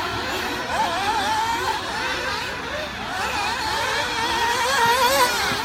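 Several nitro RC buggies' small two-stroke glow engines running on the track together, their overlapping whines rising and falling continuously as the cars accelerate and back off.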